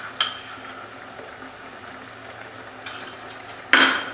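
Chicken in tomato masala sizzling quietly in a frying pan, with a small click just after the start and a brief, louder clatter of a utensil against the pan near the end.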